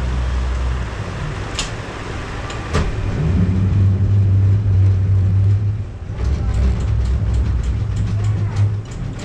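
Small passenger ferry's engine running with a loud low drone that drops about a second in, rises again around three seconds and shifts once more near six seconds, as the throttle changes. Two sharp knocks early on the way and a patter of small clicks and knocks through the last few seconds.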